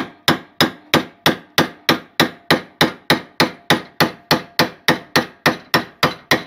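Hammer striking a steel chisel in a steady run of quick blows, about three a second, each ringing briefly. The chisel is driving the old lower bearing inner race off a Yamaha R1 steering stem, worked round the race to get it moving.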